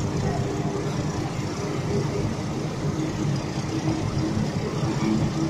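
Passenger train running along the track, heard from a carriage window: a steady rumble of wheels on rails with a low hum.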